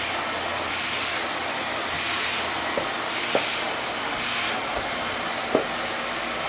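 Samsung vacuum cleaner running with a steady motor whine, its hiss swelling four times about a second apart as the nozzle is drawn over a horse's coat. Two light knocks, about halfway and near the end.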